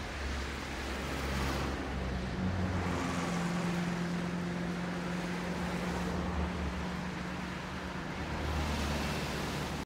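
A motor vehicle's engine running with a steady low hum under a continuous rushing, wind-like noise.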